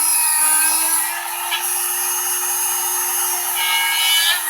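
Small electric drill running with a steady whine as its bit bores through a rubber eraser; the pitch sags briefly about half a second in as the bit takes load.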